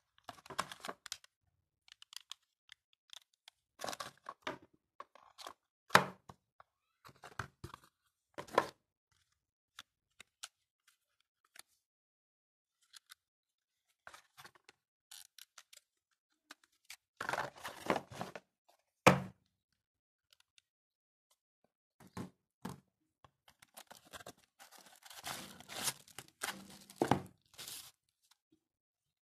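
Handling noises of unboxing a smartphone: scattered knocks and rustles of cardboard box parts and small accessories on a wooden table, with a few sharp thunks. Near the end, a few seconds of crinkling of a clear plastic accessory bag.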